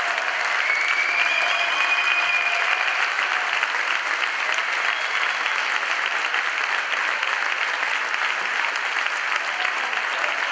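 Crowd of spectators applauding steadily, many hands clapping.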